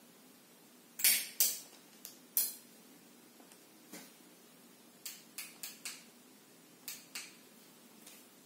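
Small plastic headlamp being handled and its switch clicked to turn the light on: about ten sharp clicks at irregular spacing, some in quick runs of two to four.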